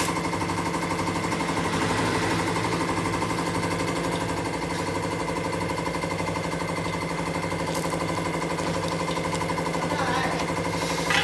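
A machine or engine running steadily with a fast, even pulsing.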